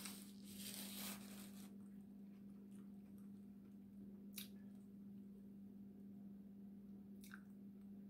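Near silence over a steady low hum, with the faint mouth and handling sounds of someone eating seafood: a soft rustle in the first second or two and two small clicks later on.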